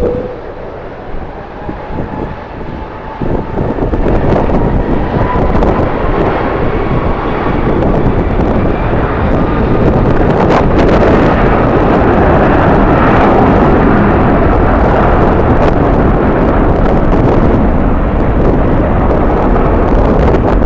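Jet airliner's engines, the noise building over the first few seconds and then holding steady and loud, with a thin engine whine gliding slowly upward in pitch.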